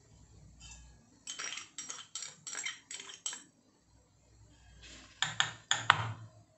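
A metal spoon clinking against a glass bowl and a steel mixer-grinder jar as sugar is scooped and tipped in: a run of quick, sharp clinks from about a second in, and a few more near the end.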